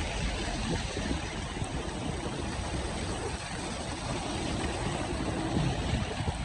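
Steady rushing road noise of a vehicle on the move, with a low rumble underneath.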